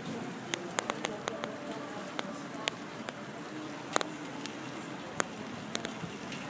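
Steady rolling noise of a recumbent trike riding along a paved boardwalk, broken by about a dozen irregular sharp clicks and knocks, the loudest about four seconds in.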